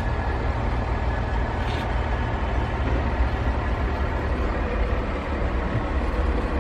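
A steady low rumble under an even hiss, with no clear beat or pitch.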